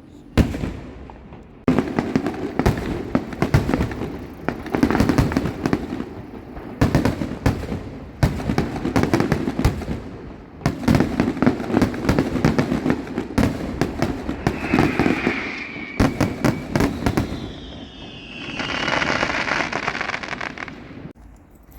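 Fireworks finale: a rapid, continuous barrage of bangs and crackles, with a falling whistle in the second half and a broad hiss near the end before it all stops suddenly.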